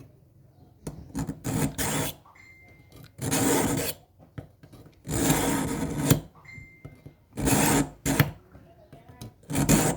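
Metal scraping against an abrasive surface in about six uneven rasping strokes, each half a second to a second long with short pauses between: hand filing or sharpening strokes.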